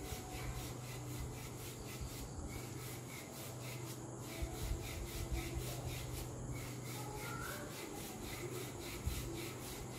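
Wooden rolling pin rolled back and forth over floured pizza dough, a soft rubbing over a steady low hum.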